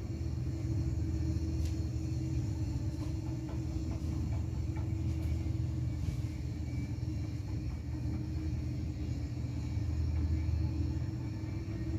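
Steady low rumble of distant city traffic heard from high above, under a constant hum.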